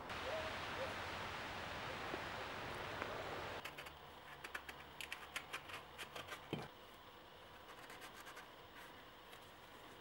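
Steady outdoor hiss, then a knife cutting into the rind of a pomegranate: a quick run of scratchy clicks and small cracks with one sharper crack near the middle, trailing off into faint scraping.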